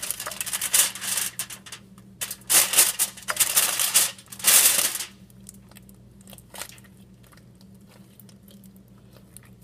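Crinkling, crushing and tearing handling noises as material is torn up and added to a bowl of slime, in several loud rustling bursts over the first five seconds, then only a few faint clicks.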